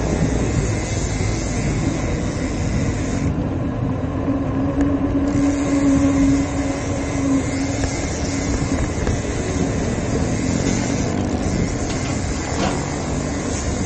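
Wind rushing over an action camera's microphone on a moving bicycle, mixed with road and traffic noise. A steady hum joins for a few seconds near the middle.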